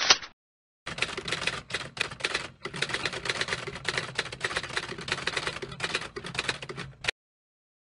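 Typewriter typing sound effect: a rapid stream of key clicks for about six seconds, with a few short breaks, as on-screen text is typed out. A brief swish comes right at the start.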